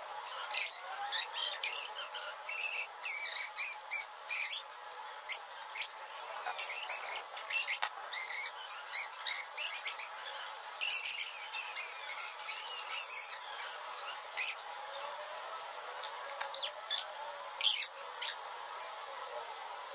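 A knife scraping the scales off a fish on a concrete slab: quick, scratchy strokes in irregular runs, with short pauses between them.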